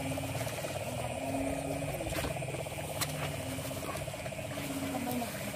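Frogs calling in chorus: a steady, fast pulsing trill with low drawn-out croaks coming and going every second or so. A couple of sharp clicks sound a little over two and three seconds in.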